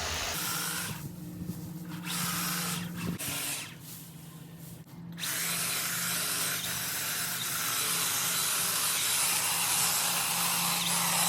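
Battery-powered Stihl KMA 130R KombiSystem motor driving freshly sharpened extension hedge-trimmer blades, running and cutting with a steady hum. The level dips for a moment around four seconds in, then picks up again.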